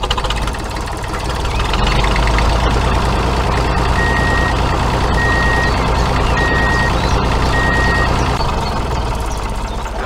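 Vehicle engine running steadily, growing louder about two seconds in, with a reversing alarm beeping four times, about a second apart, partway through. This is a sound effect laid over a toy tractor backing up to its trailer.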